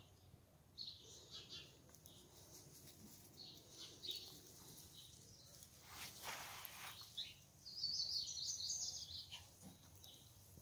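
Birds chirping in short, scattered high calls, with a louder quick run of chirps about eight seconds in. A brief rush of noise comes just before it.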